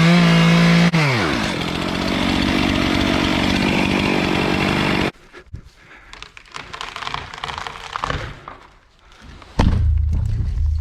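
Chainsaw running at high revs, dropping to a rough idle about a second in, then cutting off abruptly about halfway through. Scattered knocks and rustling follow, and a loud low rumble for about a second near the end.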